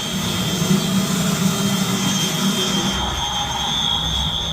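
Steady rush of water through an open fire sprinkler system drain during a drain test, with a steady high-pitched tone from the activated fire alarm running over it. The rush turns deeper about three seconds in.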